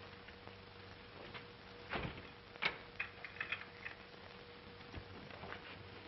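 A few faint, scattered knocks and clicks, clustering briefly about three seconds in, over the steady hum and hiss of an old film soundtrack.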